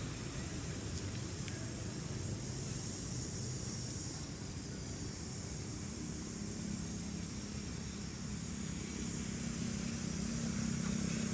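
Steady outdoor background noise with a low, engine-like hum that swells in the second half, over a faint high hiss.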